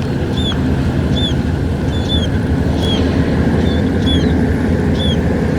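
An engine running steadily with a low hum. Over it, a short high chirp repeats a little more often than once a second.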